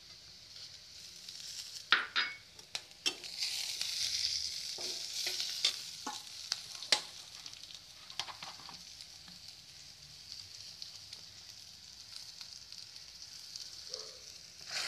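Browning sliced onions and chopped green chillies sizzling as they fry in oil in a kadai. A metal spatula clicks and scrapes against the pan as they are stirred, mostly in the first half, while the sizzle is louder in the middle and then settles to a steadier, quieter hiss.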